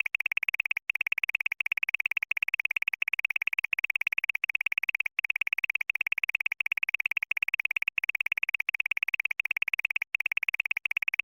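Looped synthesized sound effect: a rapid, high-pitched electronic trill that breaks off briefly about every 0.7 seconds and starts again.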